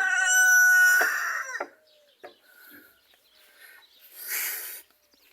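A rooster crowing: one long held call that ends about a second and a half in. A short breathy burst of noise follows about four seconds in.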